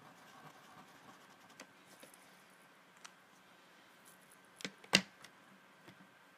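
Quiet handling of colouring markers over paper: faint taps and light rubbing, then a small click followed by a sharp, louder click about five seconds in.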